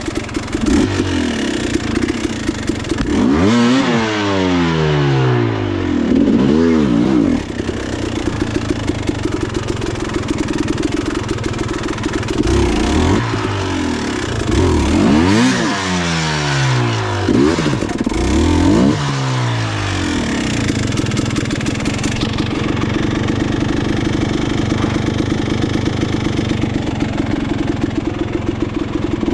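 Dirt bike engine under way, its revs rising and falling again and again as the throttle is worked. For the last several seconds it holds a fairly steady pitch.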